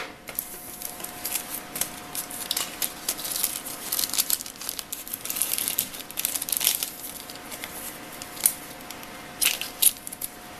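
Clear plastic parts bag crinkling and rustling as it is handled and a taped strip of axial diodes is pulled out of it, with a few sharper crackles near the end.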